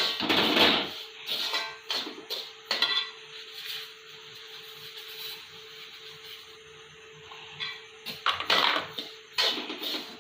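Spatula scraping and stirring semolina roasting in fat in a kadai, in rapid strokes near the start and again near the end, with a quieter stretch in between. A steady hum runs underneath.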